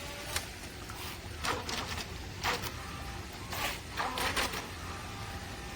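The remote-control boat's small electric motor and propeller whirring in several short bursts of throttle, each lasting under half a second.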